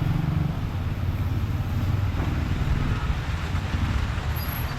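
Motor vehicle engine running with a steady low rumble, over the hiss of roadside traffic.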